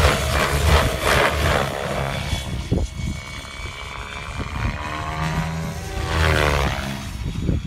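Gaui X7 electric RC helicopter flying aerobatics: its rotor blades chop in fast pulses for the first couple of seconds. About five seconds in, a pitched motor-and-rotor whine swells and then bends away.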